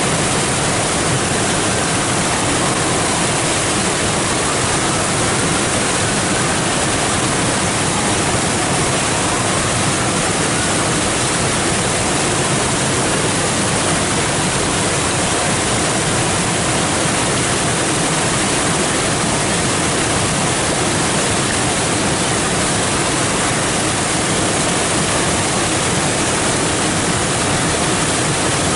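Flood-swollen creek water pouring over a limestone ledge and through rapids: a loud, steady rush of white water.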